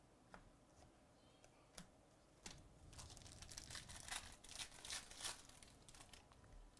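A few light clicks, then a plastic trading-card pack wrapper being torn open and crinkled from about three seconds in. All of it is faint.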